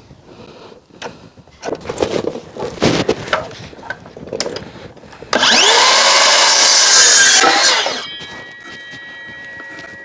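A power saw starts up and cuts through timber for about three seconds, loud and sudden to start, after clattering knocks of timber being handled. After the cut a faint steady whine lingers as the blade runs on.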